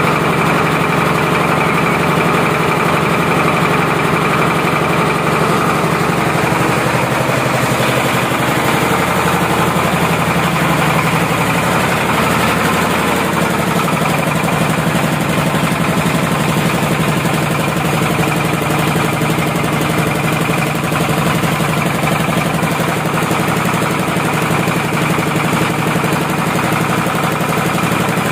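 Single-cylinder horizontal diesel engine running steadily at idle as it warms up.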